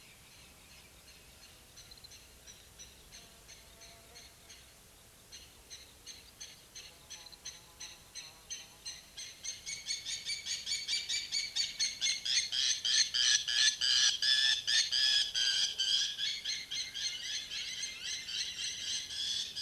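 Birds chirping in a rapid, evenly repeated chorus of high calls, faint at first and growing much louder and denser about halfway through.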